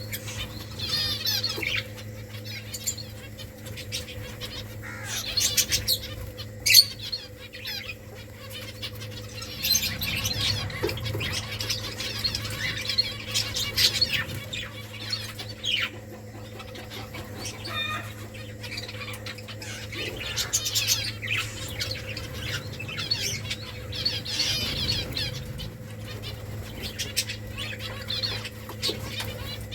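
Small finches chirping and twittering in quick high calls, with wing flutters and scattered sharp clicks, over a steady low hum.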